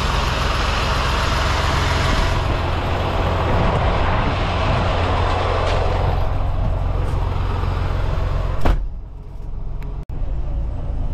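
Semi truck's diesel engine running steadily under a broad hiss of noise. About three-quarters of the way through there is one sharp knock, after which the hiss falls away and the sound briefly drops out.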